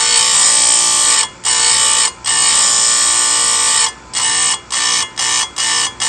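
Chainsaw chain grinder's abrasive wheel grinding a chain's cutter tooth, taking the bulk of the material off. A loud, high-pitched steady grinding whine, broken by a few brief dips that come about twice a second in the last two seconds.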